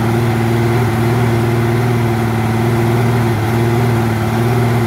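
Evinrude E-TEC 200 HP small-block two-stroke V6 outboard running steadily at a slightly raised idle, held at one speed, while fed water through its flush port.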